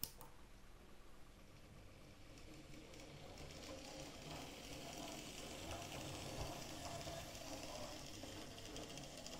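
Faint whirr of an OO gauge model locomotive's small electric motor running along the track, growing a little louder about three seconds in. A sharp click comes at the very start.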